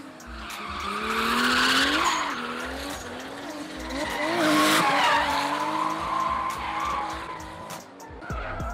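Drift car engine revving hard, its pitch rising and falling repeatedly as it slides through a corner, with tyres squealing and skidding. It is loudest about two seconds in and again about five seconds in.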